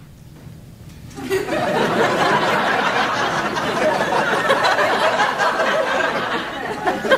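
Studio audience laughter that breaks out suddenly about a second in and holds steady. Before it there is only a faint low hum.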